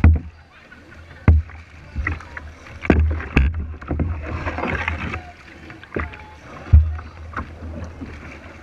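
Kayak paddling: water splashing from paddle strokes, with several sharp thuds on the kayak's plastic hull, which carry heavily into the camera on the bow deck. The loudest thuds come at the very start, after a little over a second and near the end.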